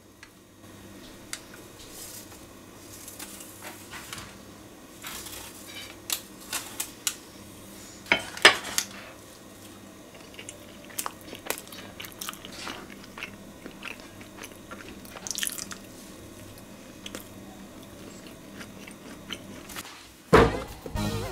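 The crisp crust of a baked banana pie cracking and crunching as it is broken apart by hand and cut with a knife, in irregular sharp crackles, loudest about eight seconds in. Near the end, bananas are set down on a plastic cutting board with a thump.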